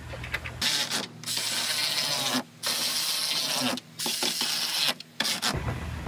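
Cordless power tool whirring in several runs of about a second each, with short pauses between, while the tail lights are being fastened in.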